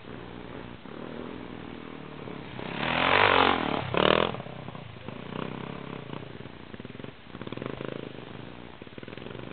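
Dirt bike engines revving on a trail climb, loudest as one bike passes close about three seconds in with two loud throttle surges, then more distant bikes revving up the slope.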